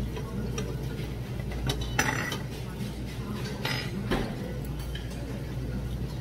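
Metal utensils clinking against dishes at a meal table, a few sharp clinks about two and four seconds in, over a steady low hum.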